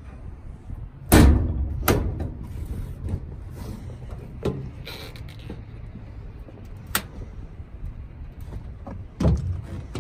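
Aluminum diamond-plate truck bed toolbox being shut and handled: a loud metal bang about a second in, as the lid comes down, then lighter knocks, a sharp click near the middle and another heavy knock near the end.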